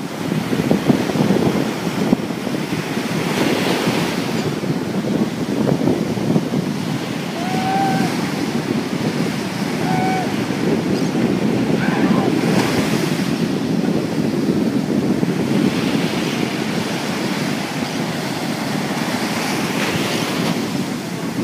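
Sea surf washing and breaking on a sandy beach, a steady rushing, with wind buffeting the microphone. Two short faint calls come through about eight and ten seconds in.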